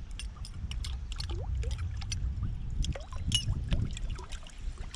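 Flap-tail musky topwater lure being retrieved across the water surface, its metal tail blade giving a run of irregular clicks and ticks over a low steady rumble.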